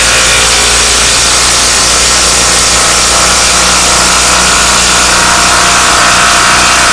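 Porter-Cable PCCK640LB cordless impact driver hammering steadily as it drives a thick 4-inch lag bolt through a socket into a 2x4.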